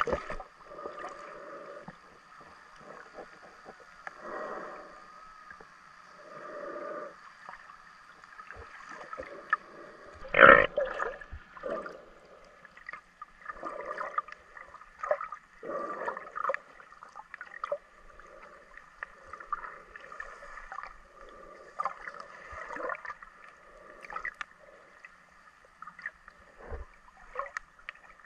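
Muffled water sloshing and gurgling, heard underwater through a camera's waterproof housing. It comes in irregular surges, with one louder burst about ten seconds in.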